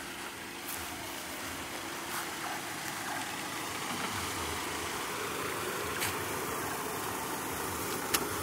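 A steady engine-like running noise, an even hum and hiss that does not change, with a couple of light clicks in the second half.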